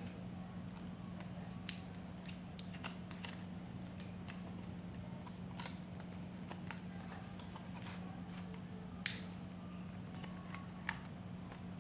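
Scattered light clicks and taps of a 2.5-inch laptop hard drive and its mounting parts being handled and fitted inside an open laptop case, the sharpest about nine seconds in, over a steady low hum.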